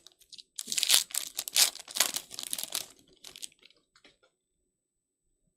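Foil wrapper of a 2023 Panini Illusions Football trading card pack being torn open and crinkled. It gives a dense crackle lasting about three seconds.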